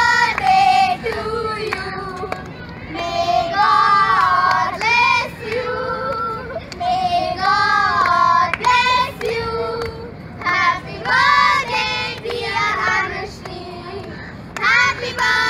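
A small group of girls singing a song together, clapping their hands along.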